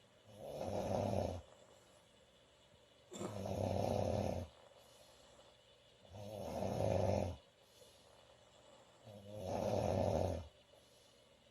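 A woman snoring loudly, four snores about three seconds apart, each lasting about a second and a half with quiet breathing gaps between.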